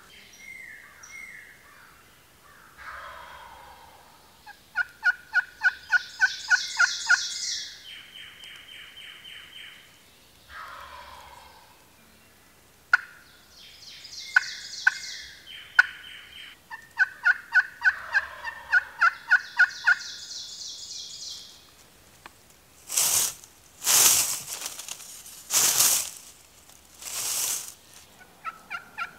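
Wild turkeys calling: several runs of rapid repeated notes, then four loud harsh bursts about a second apart near the end.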